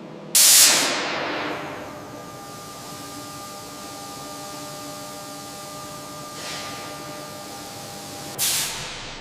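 Hissing spray in short bursts: a loud one about half a second in that dies away over a second or so, a softer one later, and another loud one near the end, over a faint steady hum.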